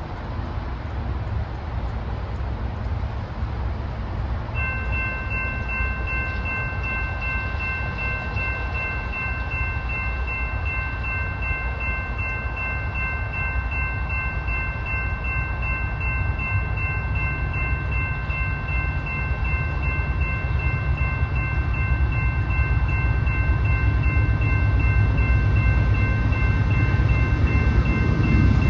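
Grade-crossing warning bell starts ringing about four and a half seconds in, a rapid, steady repeating ring that signals the crossing gates coming down for an approaching train. Under it, the low rumble of the approaching freight train's diesel locomotives grows louder toward the end.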